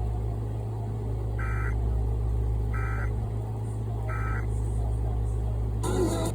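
Emergency Alert System end-of-message signal: three short bursts of two-tone digital data warble, about 1.3 seconds apart, over a steady low hum. A brief crackle sounds near the end.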